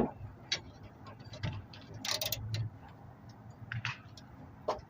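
Hand tools on a bolt: a 1/2 inch socket ratchet and a 10 mm wrench give a handful of sharp metal clicks and clinks at irregular intervals as they are set on a bolt of a spare tire carrier assembly.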